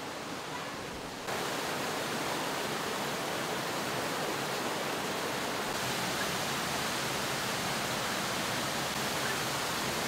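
Waterfall pouring into a deep rock pool: a steady rush of falling water that steps up louder about a second in.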